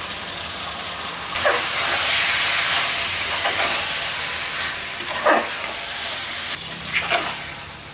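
Sizzling in an aluminium pressure cooker as soaked, drained rice goes into hot oil and masala, loudest for a second or two and then easing. A ladle stirs and scrapes through the rice four times, about every two seconds.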